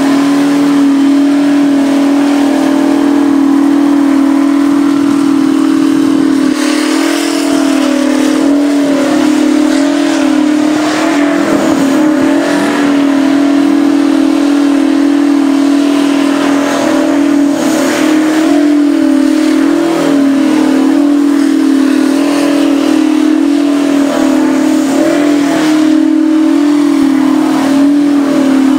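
Taylor Made twin-turbo V16 Mack truck engine held at high, nearly steady revs during a burnout, its rear tyres spinning. One strong note wavers only slightly in pitch, under a hiss of tyre and engine noise.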